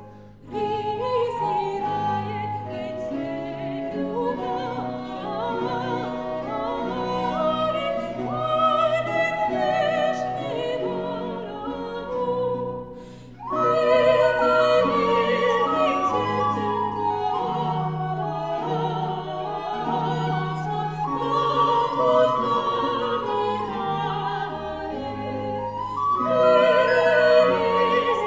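Classical music: a singer's voice with vibrato over orchestral accompaniment. The music pauses briefly just after the start and again about thirteen seconds in.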